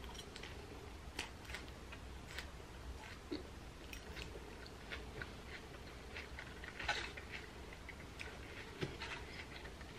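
Chewing of a mouthful of mixed salad leaves, heard close up as scattered soft crunches and small wet mouth clicks. The loudest crunch comes about seven seconds in.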